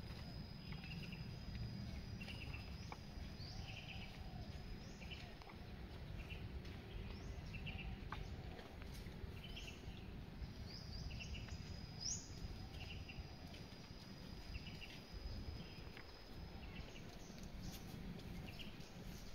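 Birds calling: short chirps repeating about once a second, and several long, high, steady whistles that each start with a quick upward sweep. Underneath is a constant low background rumble.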